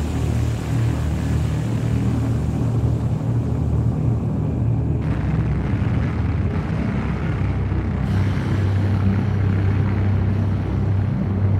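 Steady deep rumbling drone of an ambient space soundscape. The higher hiss above it drops away about five seconds in and comes back about three seconds later.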